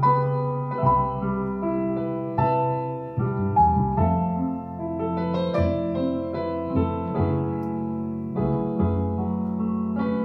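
Piano playing a slow ballad in sustained chords, a new note or chord every second or so.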